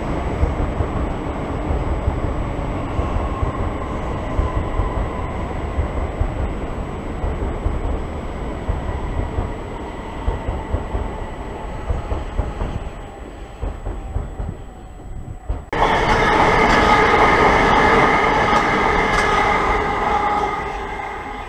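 Southern electric multiple-unit train running through the station with a rumble and a faint whine that slowly falls in pitch. About sixteen seconds in the sound jumps suddenly louder, with a whine of several steady tones, as a train comes in along the near platform.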